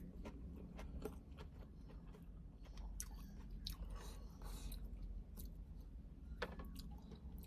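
A person chewing and biting a lumpia (spring roll), with crunches scattered through it and a couple of sharper crunches about three seconds in and again near the end.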